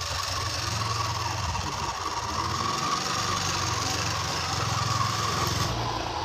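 A radio-controlled toy dump truck running under a full load, making a steady engine-like drone with a low rumble and some rattle.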